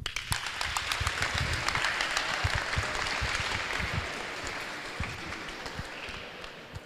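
Audience applauding: many hands clapping, starting all at once and slowly dying away over about six seconds.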